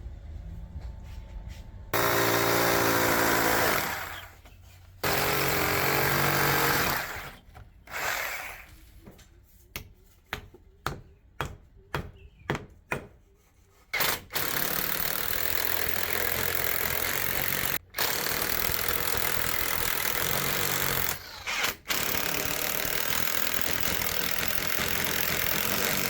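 Power tool running in bursts: two runs of about two seconds, then a quick string of short trigger pulses, then a long steady run broken by a few brief stops.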